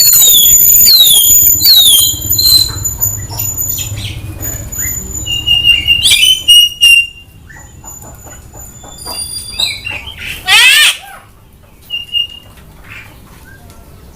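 Javan myna calling: a run of high, falling whistles at the start, then scattered chirps and squawky notes, and a fast fluttering call about ten seconds in. A low rustling noise runs under the first half.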